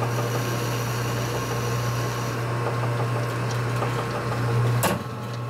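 Metal lathe running with a steady hum, its spindle turning a metal collar against the cutting tool. There is one sharp click near the end, after which it runs a little quieter.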